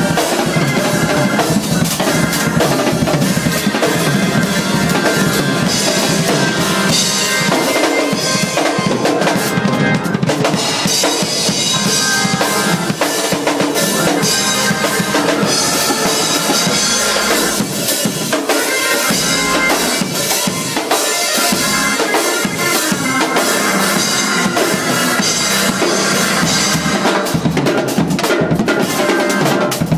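Two acoustic drum kits played together in gospel shed style: continuous, dense grooves and fills on snare, bass drum, toms and cymbals.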